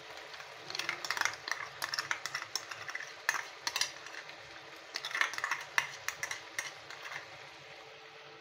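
A steel spoon scraping and clicking against a small plastic tub as fresh cream is scooped out and dropped into the pan. The scrapes and clicks come in irregular runs and stop shortly before the end.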